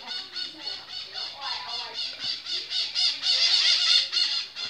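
Maritacas, small Brazilian parrots, calling in a fast string of harsh calls, several a second. The calls grow loudest from about three seconds in.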